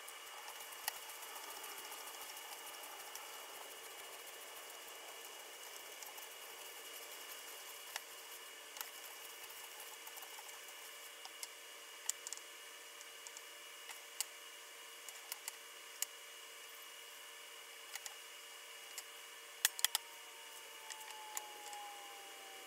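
Quiet room hum broken by scattered light clicks and taps as a metal level and straightedge are set down and shifted on a walnut slab; a pair of sharper knocks about twenty seconds in is the loudest.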